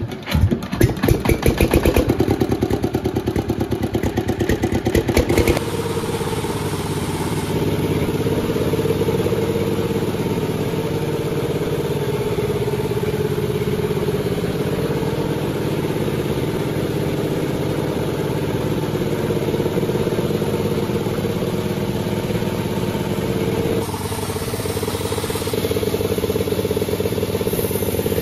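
Engine of a Panda36 sawmill running. It pulses roughly for the first five seconds or so, then settles into a steady run.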